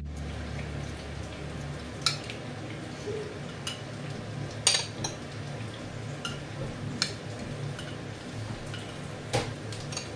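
A metal spoon clinking against a glass jar, several sharp clinks at irregular intervals with the loudest about halfway through, as pickled tomatoes are fished out of the jar. A low steady hum runs underneath.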